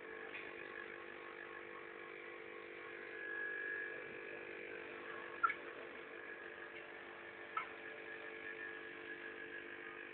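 Three-head hair wefting machine running steadily: a low hum with a high whine over it, and two short sharp clicks about halfway through.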